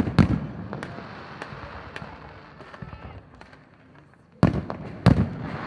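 Fireworks shells bursting in the sky. Two loud bangs come at the start, then scattered smaller pops and crackling, then two more loud bangs about four and five seconds in, each trailing off in an echo.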